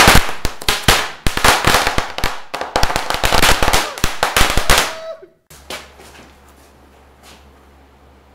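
A string of small firecrackers going off in a rapid, irregular crackle of sharp bangs for about five seconds, then stopping.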